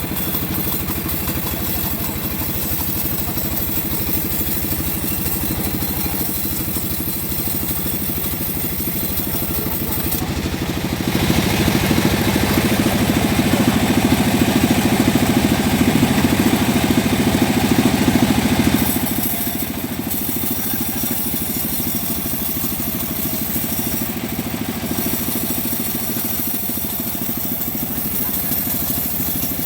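Engine-driven homemade bandsaw mill running steadily. In the middle it grows louder and noisier for about eight seconds, as when the blade is cutting through a mahogany log.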